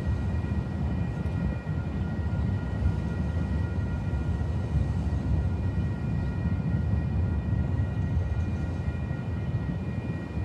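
Steady low rumble of passing transport with a faint high whine of a few steady tones: a jet aircraft overhead mixed with a red light-rail train rolling past.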